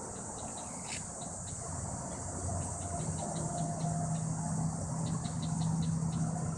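Insects buzzing with quick, repeated chirps. About three seconds in, the low steady drone of an approaching Amtrak P42DC diesel locomotive sets in and grows a little louder.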